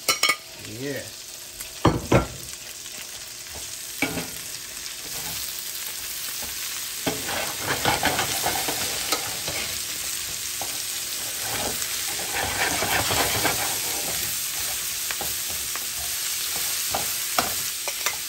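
Onions frying in hot rendered bacon fat in a pan, sizzling steadily while being stirred, with a few knocks of the spoon against the pan. The sizzle grows louder from about four seconds in.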